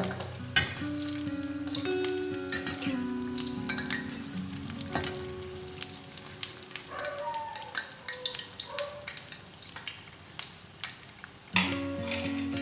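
Wheat bondas deep-frying in hot oil, sizzling and crackling steadily while a perforated steel skimmer turns them in the pan. One sharp clink of the steel skimmer on the pan about half a second in.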